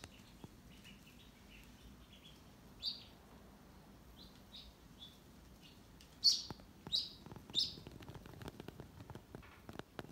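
Duckling peeping while held for tube feeding: scattered short high chirps, with three loud peeps a little over half a second apart past the middle. Faint rustling and clicking of handling in the second half.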